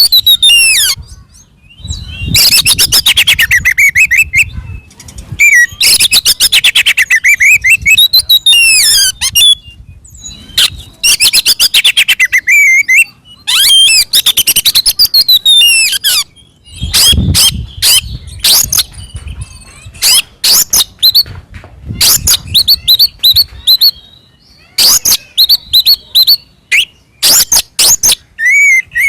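Oriental magpie-robin (kacer) singing a loud, fighting-mood song: phrases of a few seconds of rapid chattering trills and whistled notes, separated by short pauses, breaking into shorter bursts in the second half.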